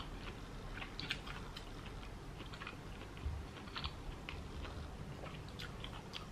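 A person eating steamed fish with her hands: quiet chewing with small, irregular mouth clicks and ticks.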